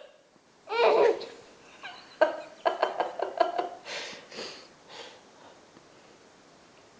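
A young child laughing: a high squeal about a second in, then a quick run of giggles, trailing off into breathy laughs by about five seconds.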